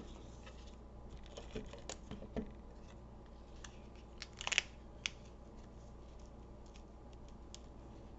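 Paper and card stock being handled on a craft table: scattered light taps and small rustles, with one brief louder rustle about four and a half seconds in.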